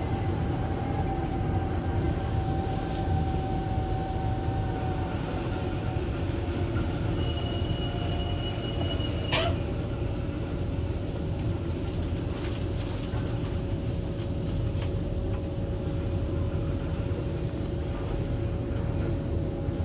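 Interior of a Kawasaki Heavy Industries C151 metro train: a steady low rumble with a constant electrical hum, a fainter whine fading away over the first few seconds, and a high steady tone for about two seconds near the middle, ended by a short sharp sound.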